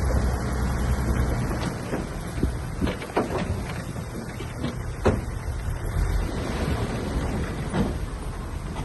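Bulldozer's diesel engine running in a low steady rumble that eases off about a second and a half in. Over it come several sharp knocks, the loudest about five seconds in.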